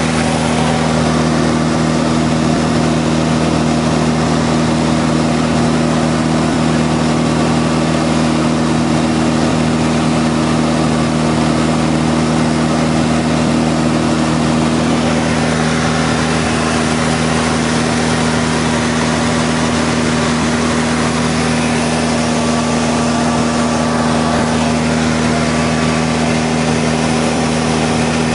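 Van's RV-6 light aircraft's piston engine and propeller droning steadily in cruise, heard from inside the cockpit over a constant hiss.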